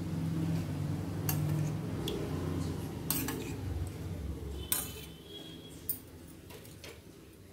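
A metal spoon clinking and scraping against a small steel bowl and a steel frying pan as cooking oil is poured into the pan: a few separate sharp clinks spread over several seconds.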